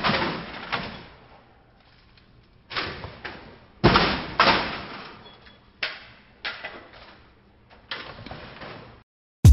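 An irregular series of sharp thuds and bangs, about a dozen, each with a short echoing tail. The loudest come about four seconds in, with quiet gaps between groups.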